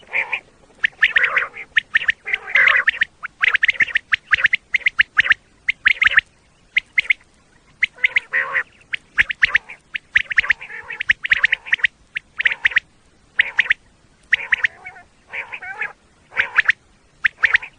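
Common quail calling: quick runs of short, sharp notes in repeated groups, separated by brief pauses.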